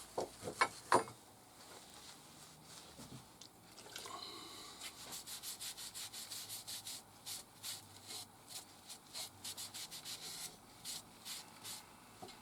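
A rag rubbed back and forth over a spalted holly wood blank, wiping on white spirit: a run of quick scratchy strokes, about four a second, starting a few seconds in and slowing near the end, after a few light knocks at the start.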